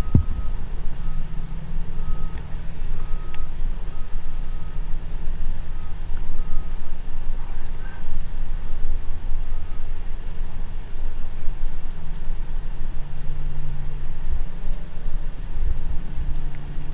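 Open-air ambience: a steady low rumble under an insect chirping in an even, high pulse about two and a half times a second, with a second, lower chirping that stops about halfway through.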